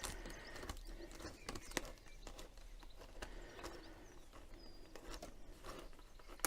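Faint, scattered clicks, taps and rustles of hands working a flexible extraction hose free of its 3D-printed joining sleeve and Jubilee clips.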